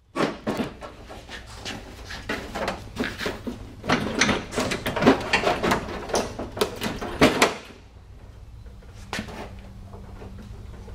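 Stock front bumper of a Land Rover Discovery Series II being tugged and slid forward off its mounting brackets: a run of knocks, clunks and scraping rattles for about seven seconds, then quieter.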